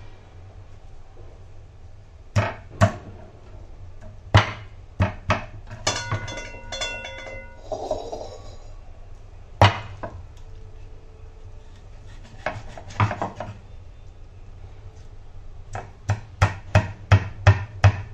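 Curved iron chopping blade striking a wooden cutting board as it cuts barramundi into small pieces: single chops spaced a second or more apart, then a quick run of about six chops near the end. A brief ringing tone sounds about six seconds in.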